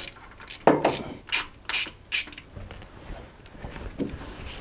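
Hand ratchet being worked back and forth to undo the screw holding the speedometer cable on the gearbox: about six short rasping clicks in the first two seconds or so, then softer clicking.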